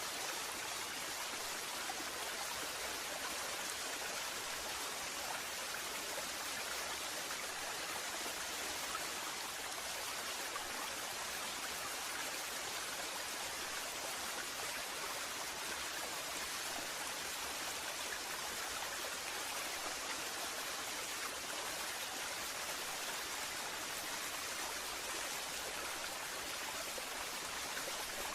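Waterfall: water falling and rushing in a steady, unchanging hiss.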